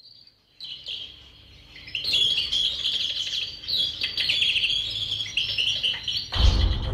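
Birds chirping and singing, sparse at first and then a dense chorus of quick high chirps from about two seconds in. Low, dark music comes in near the end.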